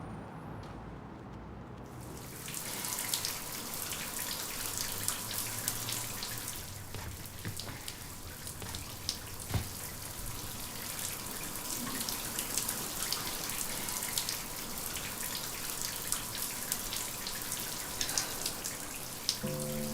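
Water splashing steadily with many small drips and patters, starting about two seconds in.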